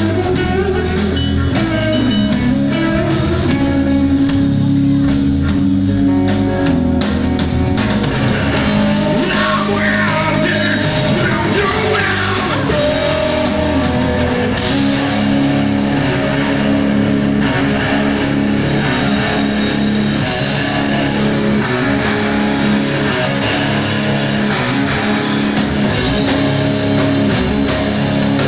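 Rock band playing live at a steady loud level: electric guitars over a drum kit.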